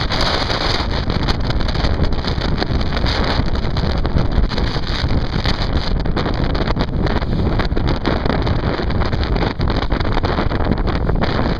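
Wind buffeting the microphone over choppy water washing and splashing against stone riprap, with a brighter splash right at the start.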